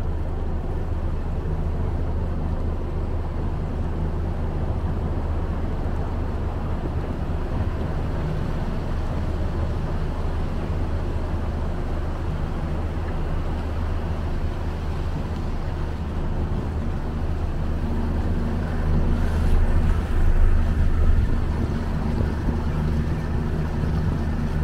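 Mercury 75 hp outboard motor running steadily as the boat cruises, a low engine hum under a rushing of water and wind. It gets briefly a little louder about twenty seconds in.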